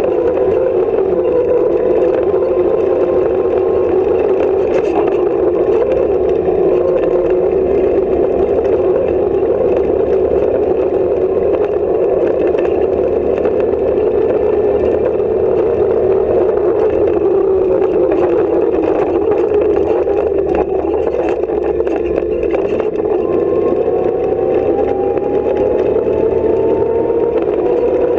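Offroad competition car's engine running hard at speed, heard from inside the stripped cabin, its pitch steady and then climbing a little near the end. Short rattles and knocks from the body and fittings come through over the rough dirt track.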